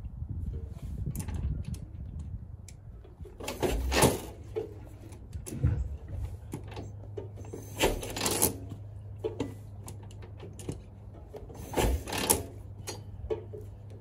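Three priming kicks on a 1940 Harley-Davidson UL's 74 cubic inch flathead V-twin, about four seconds apart. Each is a short clatter of the kickstarter and the engine turning over without firing.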